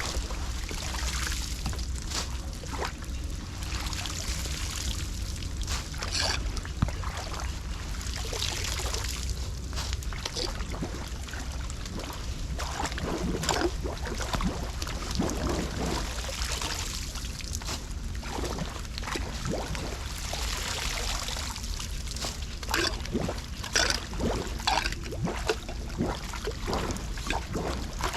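Floodwater at a clogged street drain, sloshing and trickling with irregular splashes, over a steady low rumble.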